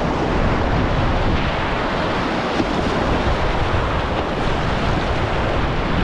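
Whitewater river rapid rushing and churning around a kayak's bow as it is paddled through, with wind buffeting the microphone.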